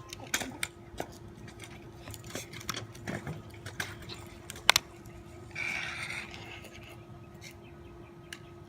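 Scattered small clicks and rustles of a handheld camera being handled, with a sharper double click just before the middle and a short rustle about six seconds in, over a faint steady hum.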